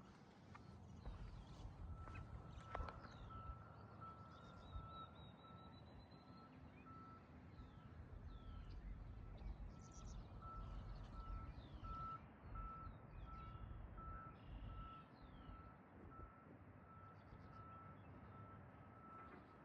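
A warning alarm on heavy equipment beeping faintly on one steady pitch, about two beeps a second, pausing briefly once, over a low rumble. Short bird chirps come through now and then.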